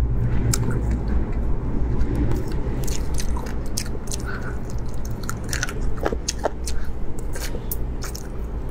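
Close-miked biting and chewing on spicy roasted chicken bones, with scattered short, crunchy clicks as meat and gristle are torn from the bone.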